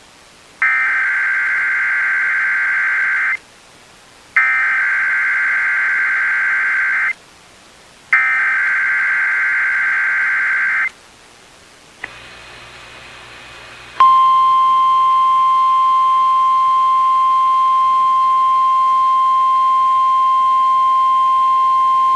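Emergency Alert System SAME header sent three times over NOAA Weather Radio: three identical screechy digital data bursts, each just under three seconds long and about a second apart. About fourteen seconds in, the single-pitch 1050 Hz Weather Radio warning alarm tone starts and holds steady.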